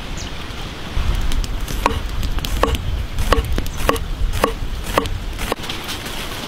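A large knife slicing crisp leafy vegetables (endive and purple cabbage) on a wooden board. There is a steady run of about seven cuts, roughly one every half second, starting about two seconds in, over a low rumble.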